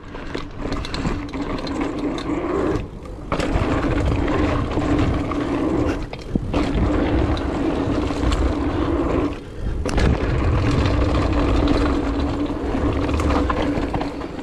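Wind rushing over a chest-mounted action camera's microphone while a 2019 Trek Roscoe 8 mountain bike's knobby tyres hum and rumble over hardpacked dirt at speed. The noise drops away briefly three times.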